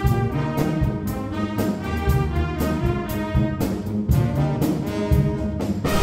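Brass-heavy recorded music with a driving drum beat, about two hits a second: the arena goal song that plays after the goal horn.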